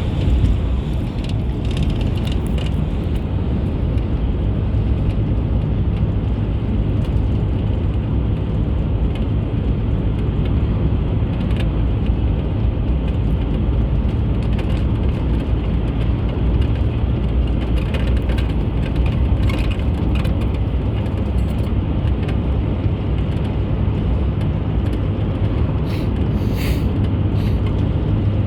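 A car driving along a road, giving a steady low rumble of road and engine noise with a few faint clicks and rattles.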